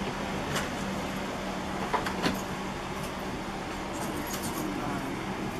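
Steady hiss of an airliner cabin's air supply with a constant low hum, in the cabin of a Boeing 777-300ER. A few light clicks and knocks sound about half a second in and twice around two seconds in.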